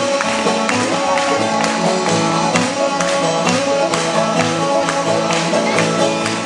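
Bluegrass string band playing an instrumental passage, with fast picked string notes over a steady bass beat.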